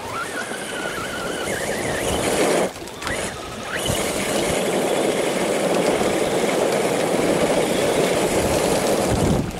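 Electric motor and gears of an Axial radio-controlled rock crawler whining as it climbs a steep sandy slope, the pitch rising and wavering with the throttle and breaking off briefly about three seconds in. A steady rushing noise takes over from about four seconds in.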